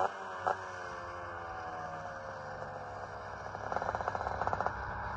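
Two-stroke Vespa with a 144 Quattrini cylinder kit heard from a distance, its engine note falling slowly as it eases off. Two short knocks near the start, and a quick run of ticks about two-thirds of the way through.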